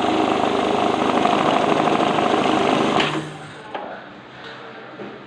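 Glory GNH-710 banknote counting machine running with a steady, fast mechanical whir, which stops about three seconds in. A few light clicks follow.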